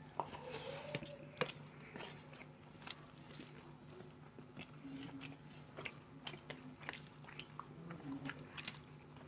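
Faint eating sounds of people eating rice and curry with their hands: chewing and mouth sounds, with scattered small clicks and ticks of fingers and steel bowls against steel plates, over a low steady hum.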